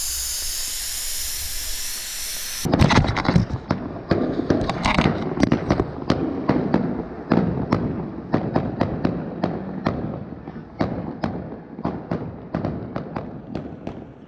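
A steady hiss, then suddenly a long irregular run of sharp bangs, two or three a second, that slowly grow fainter: fireworks going off.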